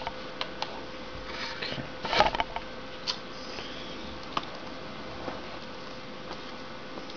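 Small clicks and taps of a slim tool and fingers seating the keyboard ribbon-cable connectors inside a Lenovo ThinkPad X1 laptop, the loudest a brief cluster of clicks about two seconds in, with a few single clicks after. A steady faint hum lies under it.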